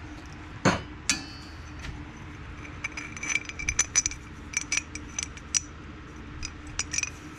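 Light metallic clinks and taps from short pieces of aluminum tube being handled and knocked together, with one sharper knock under a second in and a run of small ringing clinks in the second half, over a faint steady hum.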